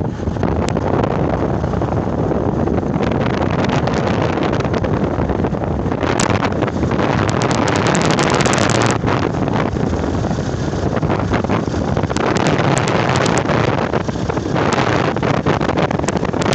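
Wind buffeting the microphone: a loud, steady rumble with frequent crackles that come in bursts.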